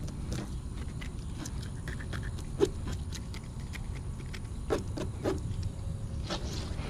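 Knife blade scraping the scales off a bluegill against a plastic tabletop: short, irregular scratchy clicks and rasps, a few louder ones about two and a half and five seconds in, over a low steady rumble.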